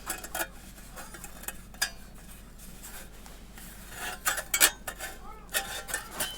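Thin titanium fire-pit plates clinking and scraping against each other as they are handled and fitted together, in short irregular clusters of light metallic taps.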